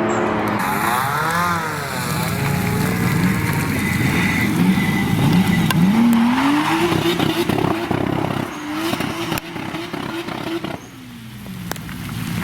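Toyota Supra's 2JZ inline-six revving hard, with tyre squeal: the engine note wavers, climbs and holds at high revs with short crackles, then falls away as the throttle lifts near the end before picking up again.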